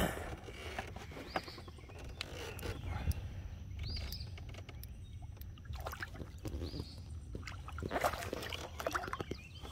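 A channel catfish splashing and thrashing at the surface beside a small boat as it is played in on the line, with scattered short splashes and the loudest splash about eight seconds in, over a low steady rumble.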